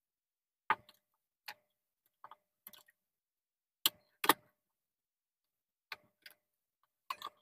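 Light, irregular clicks and taps of a small screwdriver working the terminal screws of switches on a plastic switchboard, fastening a wire in place. The two loudest clicks come close together about four seconds in.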